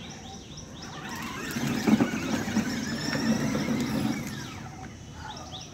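Battery-powered children's ride-on toy jeep driving over asphalt: its small electric motors and gearboxes whir and the hard wheels rumble, getting louder about a second in and fading near the end.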